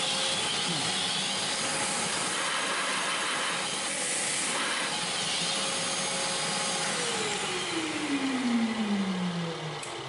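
Manual milling machine's spindle running with a steady hum under a continuous hiss from the coolant nozzle. About seven seconds in the spindle is switched off and its pitch falls over a few seconds as it winds down, while the hiss carries on.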